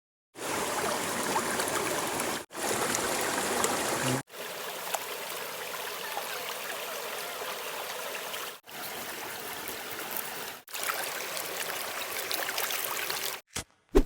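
Running water, a steady rushing that is broken by abrupt cuts into several stretches of two to four seconds each. A couple of short sharp sounds come near the end.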